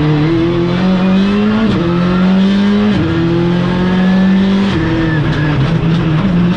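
Skoda Fabia Rally2's 1.6-litre turbocharged four-cylinder rally engine, heard inside the cockpit, pulling hard with quick upshifts about two and three seconds in. It lifts off about five seconds in as the car slows for a hairpin.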